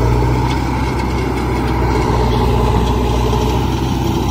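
Heavy diesel engine of a working machine idling steadily with a low, even drone.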